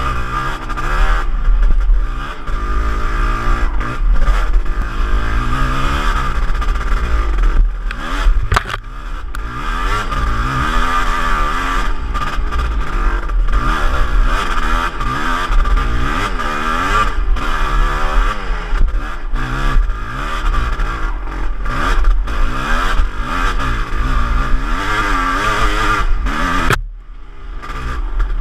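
Kawasaki 250 motocross bike engine revving up and down through the gears while riding a dirt trail, heard from a helmet camera with wind noise. Near the end the throttle is shut briefly and the engine drops off before picking up again.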